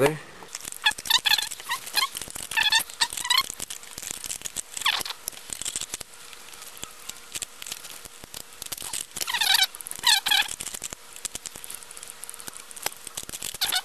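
Plastic parts of a WD My Book Essential external hard drive enclosure squeaking and clicking as the drive assembly is slid back into its shell: several short squeaks in clusters, with scattered clicks and rattles throughout.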